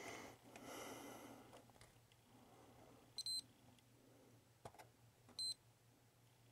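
Digital multimeter on diode test giving short, high beeps as its probes touch transistor legs: a quick double beep about three seconds in and a single beep about two seconds later, with a faint probe click and some handling rustle. The TIP102 driver transistors being checked read good.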